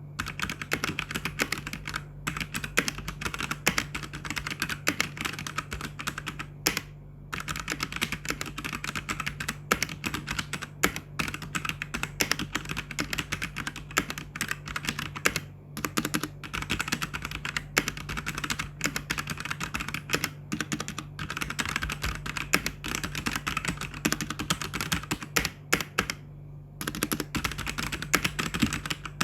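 Machenike K500 mechanical keyboard with brown switches being typed on: a fast, continuous stream of key clicks with a few brief pauses.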